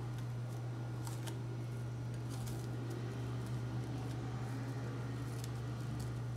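Plastic cling film crinkling faintly a few times as hands smooth it down onto a bowl of cream, over a steady low hum.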